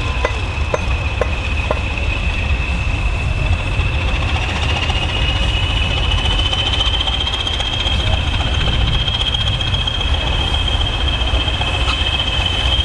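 Railway yard with English Electric Class 20 diesels idling: a steady high turbocharger whistle that rises slightly in pitch partway through, over a low rumble. A GWR 1500 class pannier tank moves slowly over pointwork, with a few clanks in the first couple of seconds.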